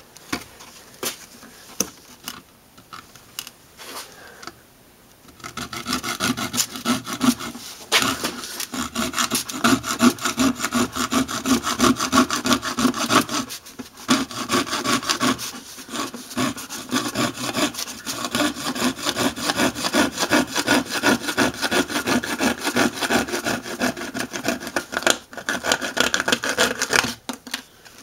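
Coping saw cutting through a plastic side-mirror housing in quick, even back-and-forth strokes. The first few seconds hold only a few light clicks of handling. The steady sawing starts about five seconds in, with short breaks around the middle and near the end.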